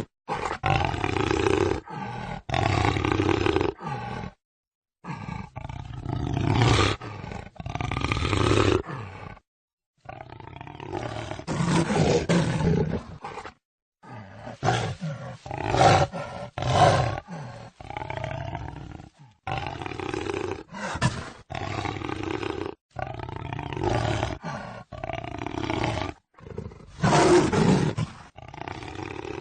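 Jaguar roaring and growling, a run of loud calls each lasting a second or two, broken by a few short dead-silent gaps where separate recordings are joined.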